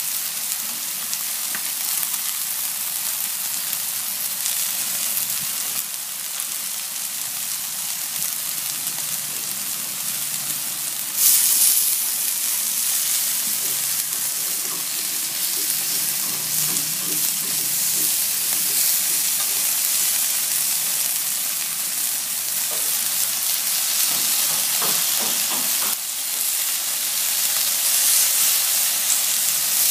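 Chicken strips sizzling on a hot ridged grill pan as they are turned with chopsticks: a steady frying hiss that turns suddenly louder about a third of the way in and stays up.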